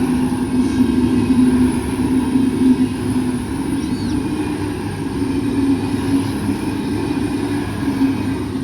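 V/Line VLocity diesel railcar running through the level crossing, a steady low engine drone with rail noise that eases off near the end as it draws away.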